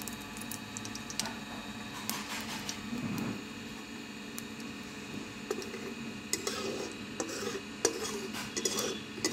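Metal spatula scraping and clinking against an aluminium kadai as cumin seeds and a dried red chilli are stirred in hot oil, the clinks coming thicker in the second half.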